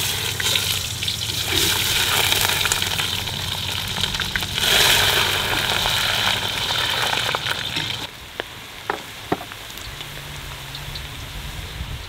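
Large chunks of onion frying in hot rendered lamb fat and butter in a cast-iron kazan: loud, vigorous sizzling that peaks about five seconds in, then drops to a quieter sizzle with a few pops after about eight seconds.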